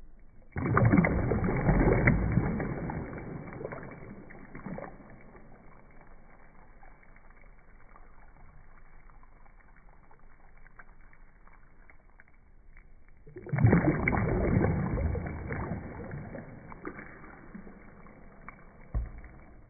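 Water splashing and bubbling around a light-up jellyfish toy bobbing in a tub. There are two loud bursts, one about half a second in and another about 13 seconds in, each fading out over a few seconds.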